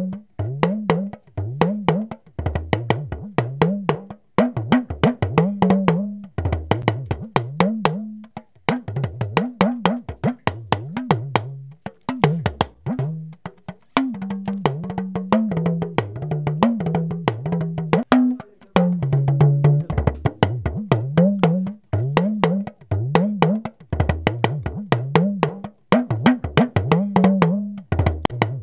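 Talking drum played in rapid strokes, its pitch gliding upward again and again. It is heard as a recording through an AKG C3000 condenser microphone, switching to a Shure SM58 dynamic microphone about halfway, then back to the C3000 right at the end.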